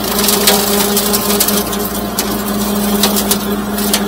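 Bobcat CT2025 compact tractor's diesel engine running steadily under load while it crawls through heavy brush, with wood and palmetto stems cracking and snapping repeatedly.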